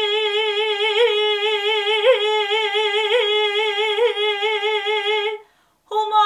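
A woman singing one long held note of a Turkish folk uzun hava, with a steady vibrato and quick upward throat flicks (hançere / gırtlak çarpması ornaments) about once a second. The note cuts off about five seconds in, and her voice starts again just before the end.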